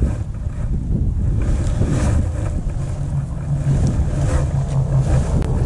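Wind buffeting the microphone, a loud low rumble that rises and falls with the gusts. A low steady hum joins for a second or two past the middle.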